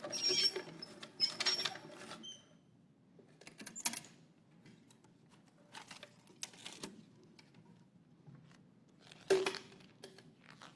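Wooden lottery drum being handled: a rattle of its contents tumbling for about two seconds, then scattered clicks and knocks of wood as it is opened and a number drawn, the loudest knock near the end.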